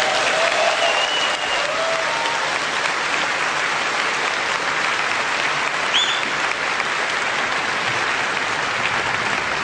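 Large audience applauding as the anthem ends, with a few short calls near the start and a brief rising whistle about six seconds in.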